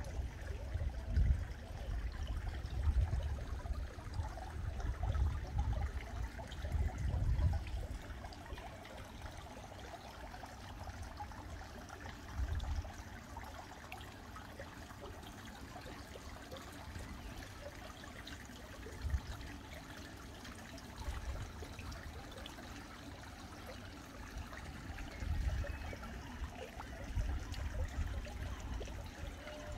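Water trickling steadily, with gusts of wind rumbling on the microphone, strongest in the first several seconds and again near the end.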